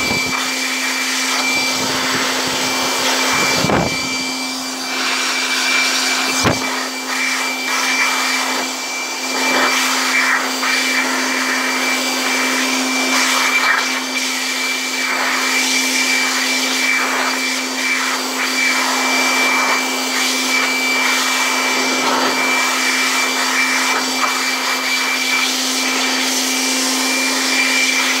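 Electric air blower running steadily: a motor hum and a thin high whine over the rush of blown air.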